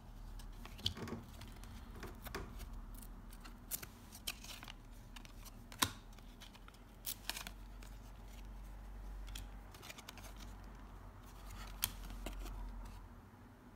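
1993–94 Upper Deck basketball trading cards being handled and flipped through by hand: faint sliding and rustling with scattered sharp clicks as cards are slid off the stack and laid down on the piles.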